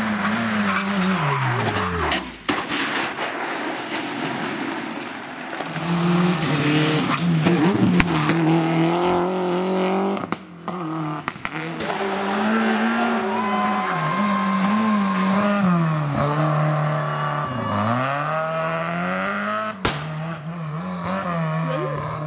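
Rally car engines revving hard, pitch climbing and dropping again and again through gear changes and lifts, with tyres skidding and squealing. The sound breaks off suddenly a few times between short cuts.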